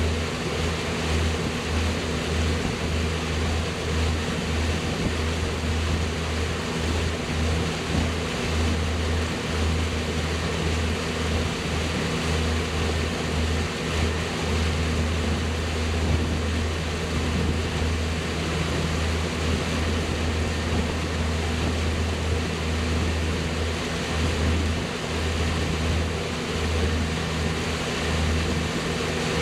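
Motorboat engine running steadily under way, with a continuous rush of wind and water noise over it.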